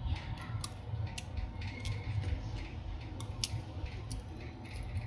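Scattered light clicks and scrapes of a metal hobby knife prying at the open phone's motherboard and frame, several irregular ticks a second, over a steady low hum.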